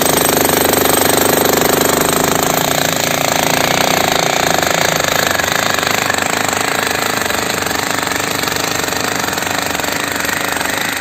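A jackhammer breaking an old concrete slab, hammering rapidly and continuously without a pause.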